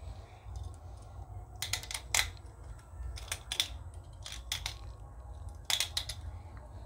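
Small hand pepper mill grinding black peppercorns: four short bursts of rapid clicking, each a few twists of the mill.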